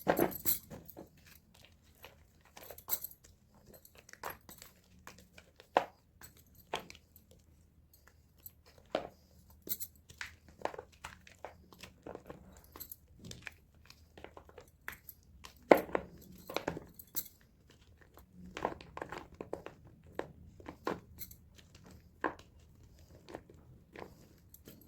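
Blocks of gym chalk being crushed, in irregular dry crunches and crumbling crackles. The crackles come thick right at the start, then thin out into scattered cracks, the sharpest about sixteen seconds in.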